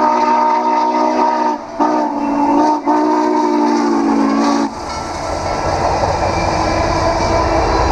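Norfolk & Western J-class No. 611 steam locomotive blowing its chime whistle as it passes, one long blast broken twice by brief gaps, cutting off sharply about four and a half seconds in. Then the low rumble of the train's wheels as the passenger cars roll by.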